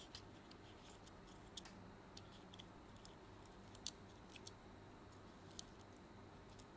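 Faint, scattered light clicks of small plastic parts and wires being handled inside an opened PS5 DualSense controller, a dozen or so irregular ticks, a couple slightly louder, over a low electrical hum.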